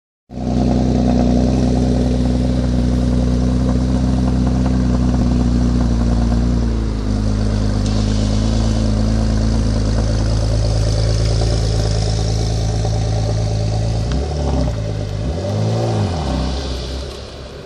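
Porsche Macan S's 3.0-litre twin-turbo V6 idling through its exhaust, first at a raised idle that drops to a lower, steadier idle about seven seconds in. Near the end come a few short throttle blips, the revs rising and falling quickly.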